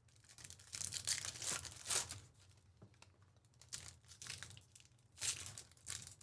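Trading-card pack wrappers crinkling and tearing as Panini Prizm Football hobby packs are opened and the cards handled, in scattered short rustles with a lull in the middle.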